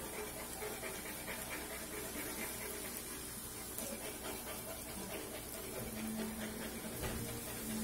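Golgappa puris deep-frying in hot oil in a steel kadai: a steady sizzle with light crackling as the puris puff up and are stirred with a ladle.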